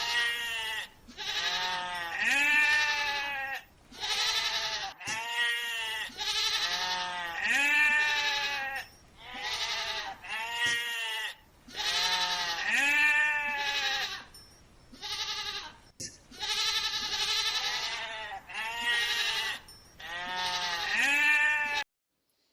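Sheep bleating over and over: a string of wavering, quavering bleats, each about a second long, with short pauses between them.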